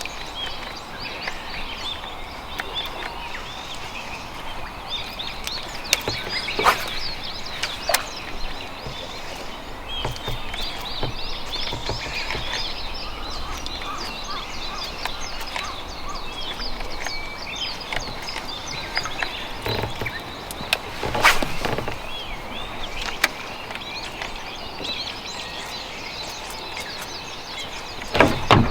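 Many birds chirping and calling at once in a busy, continuous chorus over a steady outdoor hiss. A few sharp clicks or knocks stand out above it, the loudest about a third of the way in and again about two-thirds of the way in.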